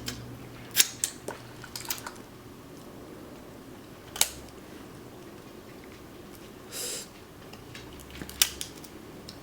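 Sharp, scattered cracks and clicks of snow crab legs being broken open and picked apart by hand, with a short crunchy rustle about seven seconds in.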